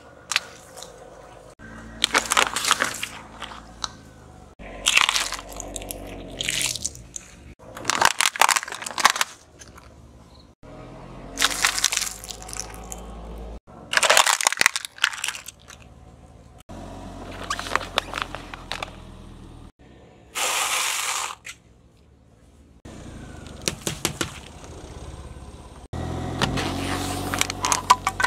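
A car tyre rolling onto and crushing small objects, such as a plastic toy, in a string of separate episodes. Each brings a burst of crunching and cracking one to three seconds long, with a low rumble between them.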